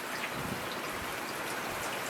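Steady rainfall, an even hiss of rain with scattered individual drops pattering on a surface.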